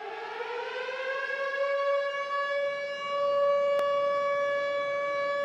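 A siren-like tone with several overtones, still rising slightly in pitch at first and then holding one steady note. A single sharp click comes about four seconds in.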